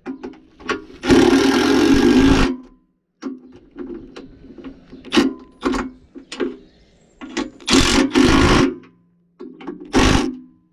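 Cordless impact driver running in bursts as it drives the bolts of the anti-roll bar bush clamps into a steel subframe. The longest burst lasts about a second and a half near the start, another about a second comes around eight seconds in, with short blips between.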